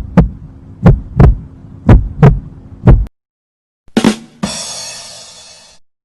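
Heartbeat sound effect: paired low thumps, lub-dub, about one pair a second, stopping about three seconds in. After a short gap, a sharp hit about four seconds in is followed by a bright ringing crash that fades out over about a second and a half.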